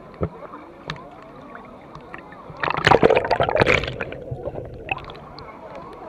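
River water splashing and sloshing right at a microphone held at the water's surface, loudest for about a second and a half in the middle.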